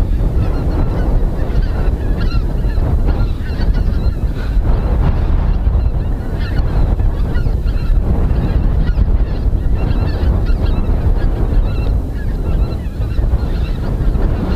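A large flock of wild geese flying over, many birds honking at once, over heavy wind noise on the microphone.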